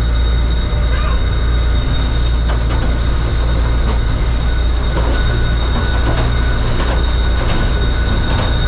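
Loud, steady drone inside a C-47's cabin from its twin Pratt & Whitney R-1830 radial engines and the rushing slipstream while paratroopers exit in flight.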